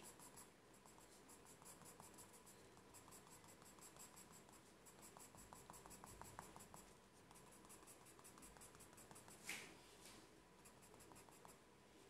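Coloured pencil shading on paper: faint, quick scratching strokes in an even rhythm, with one brief louder swish about nine and a half seconds in.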